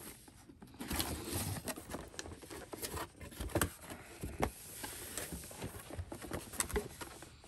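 Cardboard box being opened by hand: irregular rustling and scraping of the lid and flaps, with scattered light taps and knocks as the box and its molded pulp insert are handled.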